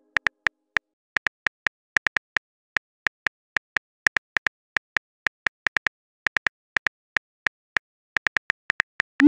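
Phone keyboard key-click sound effect typing out a text message: short, sharp clicks, irregularly spaced at about four a second. Right at the end a short rising whoosh begins as the message is sent.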